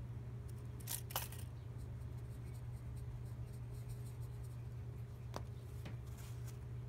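A few faint clicks and taps from handling a marker, tape measure and small wooden block: a quick pair about a second in and a few more near the end, over a steady low hum.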